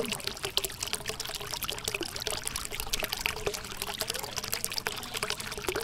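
A thin stream of water pouring and splashing steadily from the small orange pipe outlet of a homemade DC submersible water pump.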